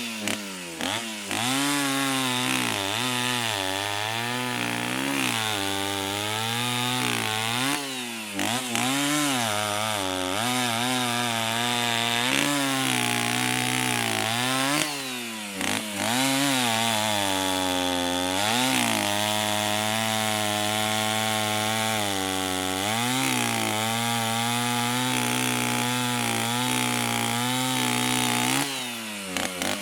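Two-stroke chainsaw running, its engine pitch repeatedly rising and falling as the throttle is worked, with a few brief drops in level.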